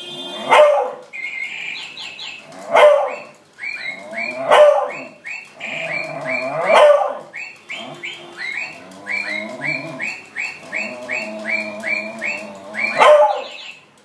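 Beagle barking about five times at a parrot, loud single barks a few seconds apart. Between the barks, a rapid run of short, high chirps.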